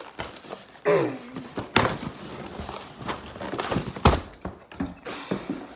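Box and packaging being handled while an airsoft gun is unboxed: a string of knocks, clicks and thuds, the loudest a deep thud about four seconds in.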